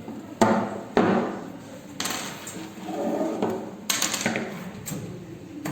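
A series of sharp metallic knocks and clanks, each ringing briefly: tool work taking out a window's frame so that a window air conditioner can be fitted.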